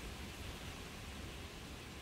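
Steady hiss of falling rain, with a low rumble underneath.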